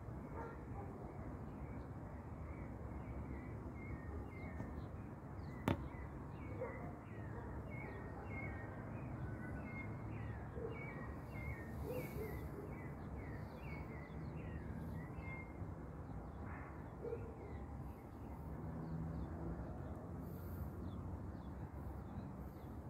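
Open-air ambience: a steady low rumble with a run of short, falling high chirps, about two a second, that fade out after about sixteen seconds. One sharp click about six seconds in.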